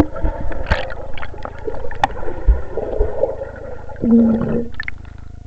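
Muffled underwater sound from a swimmer close by: gurgling bubbles and a few sharp clicks, then a short underwater vocal sound about four seconds in.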